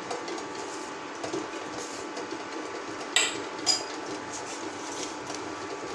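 A metal spatula stirring in a metal kadai of simmering vegetable gravy, then knocking twice against the pan about three seconds in with sharp ringing clinks, over a steady hiss.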